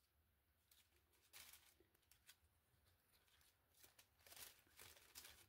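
Near silence, with a few faint rustles and ticks of small paper die cuts being handled.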